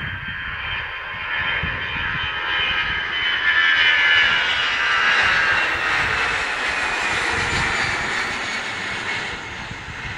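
Aer Lingus twin-engine jet airliner taking off and climbing out overhead, its engines at take-off thrust. The jet noise and whine swell to their loudest about four seconds in as the plane passes, then slowly fade.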